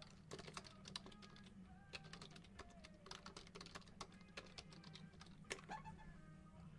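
Faint, irregular light clicks and rustles of sports cards and their plastic holders being handled, over a faint low hum.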